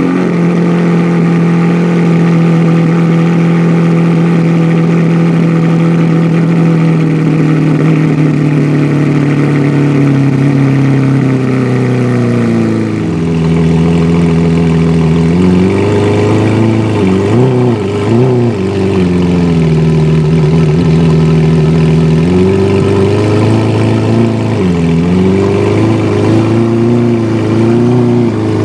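Lamborghini Veneno's 6.5-litre V12 running at a raised idle, its pitch slowly sinking for about twelve seconds and then dropping lower. In the second half the engine speed wavers up and down several times.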